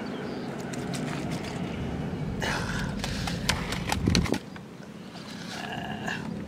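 Plastic bottles being handled and set down on the ground, giving scattered clicks and knocks, the loudest a thump about four seconds in, over a steady low rumble of wind on the microphone.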